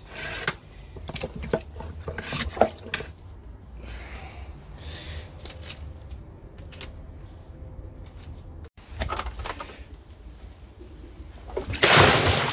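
Drain rods knocking and scraping in a manhole chamber as they are pushed down the pipe to clear a blockage. Near the end a bucket of water is thrown into the manhole with a loud splash.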